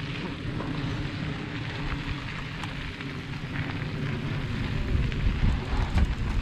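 Mountain bike rolling down a dirt and gravel trail: a steady rush of tyre noise with scattered light clicks and rattles from the bike. A low rumble grows louder about five seconds in.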